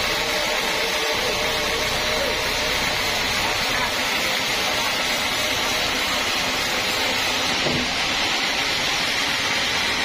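Sawmill bandsaw running steadily, a continuous even machine noise while the log carriage is levered along its rails.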